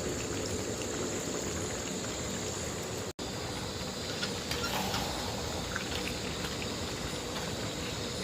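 Steady rush of pouring water, with a momentary dropout about three seconds in.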